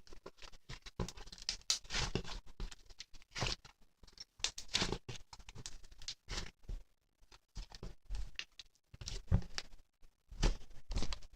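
Irregular light tapping and rustling from things being handled close to the microphone, in uneven clusters with short pauses.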